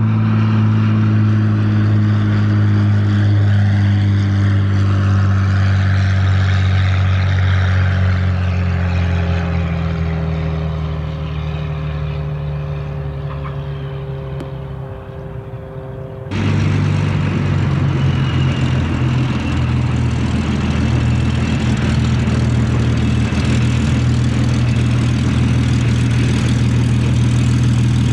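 Hawker Hurricane's Rolls-Royce Merlin III V12 engine and propeller running as the fighter flies low with its wheels down and draws away, fading and dropping slightly in pitch. About 16 seconds in, a cut brings the engine close and loud again, running steadily at low power as the aircraft taxis.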